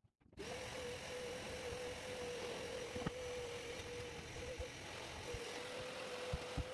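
Red canister vacuum cleaner running, a steady motor hum over hiss that starts about half a second in, with a few light knocks as the nozzle is worked over the floor.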